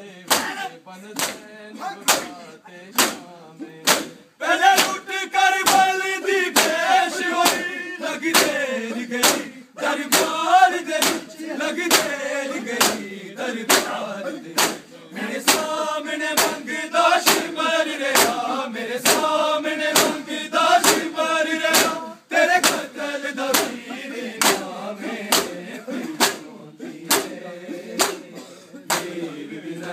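Men beating their chests in unison (matam), a sharp collective slap about one and a half times a second. From about four seconds in, a group of male voices chants a noha in time with the beats, breaking off briefly twice.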